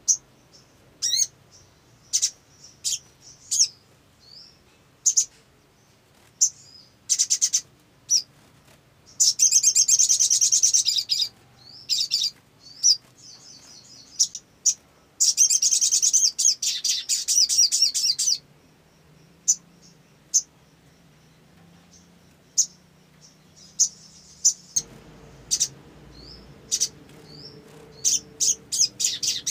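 Olive-backed sunbird singing: sharp, high, scattered chirps, broken by two long fast twittering trills about nine and fifteen seconds in, and a rapid run of chirps near the end.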